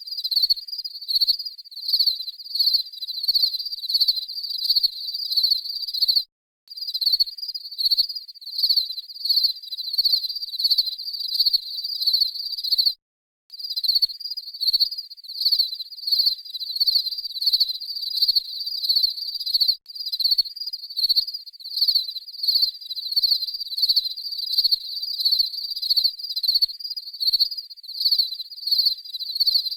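Crickets chirping: a high-pitched trill repeating in pulses about twice a second. It cuts out completely twice, briefly, in the first half.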